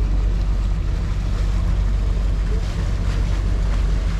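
Vaporetto (Venetian water bus) diesel engine running at a steady low drone, heard on board, with a haze of wind and water noise.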